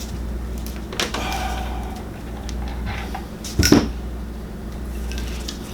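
Small tools and wire parts being handled: a few light clicks and a sharper clack about three and a half seconds in, over a steady low hum.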